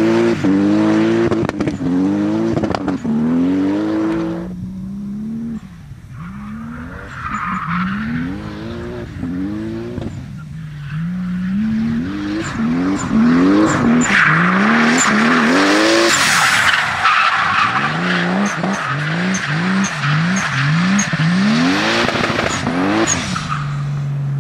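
Toyota 2JZ-GTE twin-turbo inline-six in a Nissan 200SX S13, revving hard again and again as the car drifts, its note climbing and dropping every second or so. The tyres squeal, loudest in the second half.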